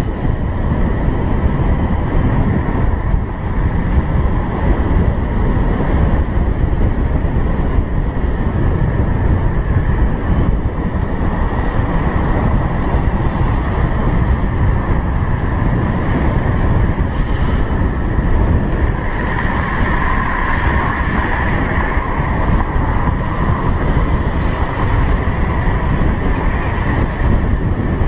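Motor scooter riding along at road speed, heard from a helmet-mounted camera: heavy wind rumble on the microphone over the engine and tyre noise. A steady high whine runs through it and grows louder about two-thirds of the way in.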